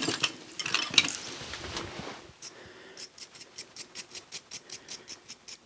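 Wire brush scrubbing a steel ratchet part in quick back-and-forth strokes, about five a second, starting about two seconds in after a few light metal clinks as tools and parts are handled.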